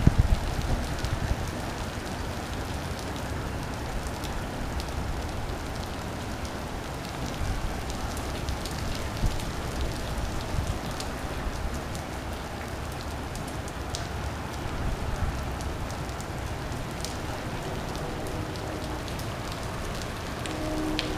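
Steady rain falling on pavement and lawn, with individual drops ticking close by. A brief low rumble sounds at the very start, and a faint steady hum comes in near the end.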